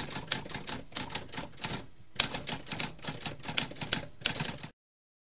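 Typewriter keys clacking in a rapid run of strikes, about five a second, with a brief pause about two seconds in; the clacking cuts off suddenly near the end.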